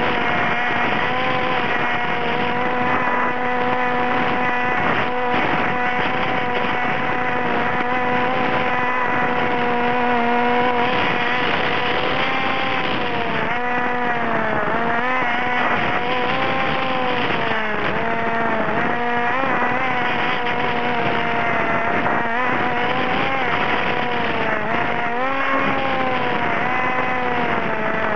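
Model aircraft's motor running steadily, heard from the camera on board, its pitch dipping and rising again several times in the second half.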